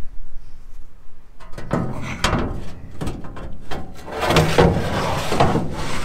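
Steel slide gate of a gravity wagon's unloading chute scraping and rattling in its metal track as it is pushed in and pulled by hand, in repeated strokes starting about a second and a half in.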